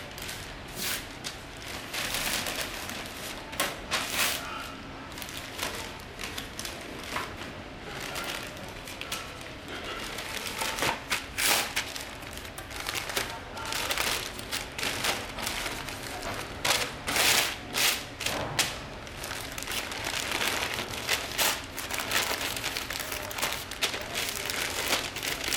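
Irregular crinkling and rustling with many sharp knocks and thuds as parts and packaging are handled; the knocks come thickest in the second half.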